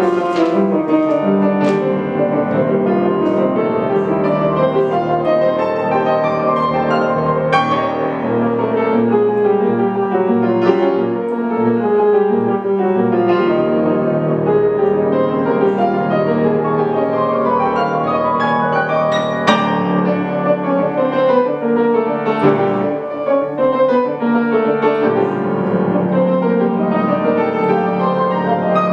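Grand piano played four hands by two players at one keyboard, a continuous classical-style duet with dense chords and several falling runs.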